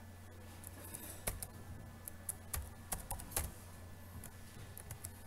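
Keys tapped on a computer keyboard: a handful of short, irregular clicks, bunched between about one and three and a half seconds in.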